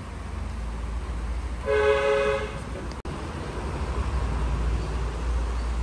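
A car horn gives one short two-tone honk of under a second, about two seconds in, over the steady low rumble of a car idling.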